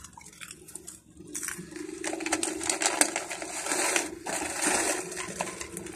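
Crinkling and crackling of a plastic corn chip bag being handled, starting about a second in, with many small sharp crackles.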